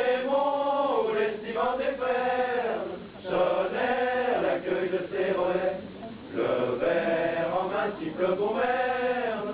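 Voices singing a slow, chant-like melody in phrases a few seconds long, with short breaks between them.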